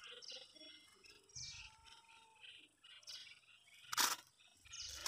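Small birds chirping and twittering in quick short calls, with a single sharp knock about four seconds in.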